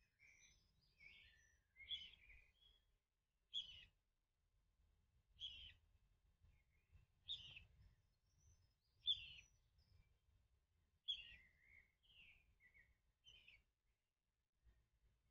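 A bird chick calling over and over for its absent parent. A sharp call comes about every two seconds, with softer chirps between.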